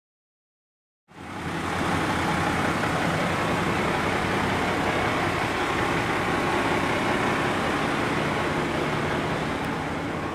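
Large tour bus's diesel engine idling steadily close by, with a broad hiss over its low hum; it comes in about a second in, after a short silence.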